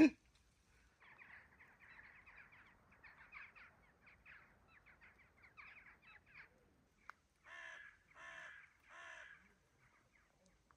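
A crow calling outdoors: faint chattering calls at first, then three harsh caws in quick succession near the end.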